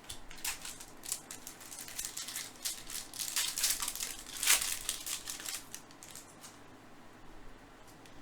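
Trading cards and their pack being handled: a quick run of rustling, crinkling and small clicks, loudest about four and a half seconds in, dying away after about six seconds.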